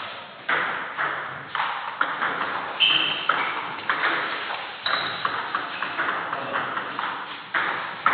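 Table tennis rally in doubles play: the celluloid-type ball clicking sharply off bats and table about twice a second, each click ringing briefly in the hall's echo.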